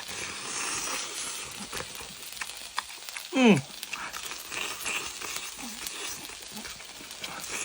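Meat and shrimp sizzling in a hot frying pan, with small clicks of chopsticks against the pan. A short voiced exclamation, rising then falling in pitch, sounds about three and a half seconds in.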